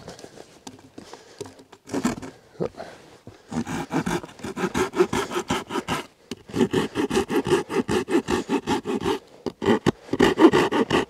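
Folding saw cutting crosswise into a split wooden board in quick back-and-forth strokes, about five a second, in three runs with brief pauses, after a few quieter knocks and scrapes. The cuts are kerfs along the paddle's blade to remove waste wood.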